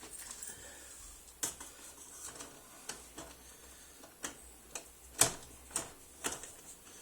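Irregular sharp metallic clicks and taps as a cheap cylinder lock on a UPVC door is worked and broken open by hand with tools. The clicks come thickest and loudest in the second half.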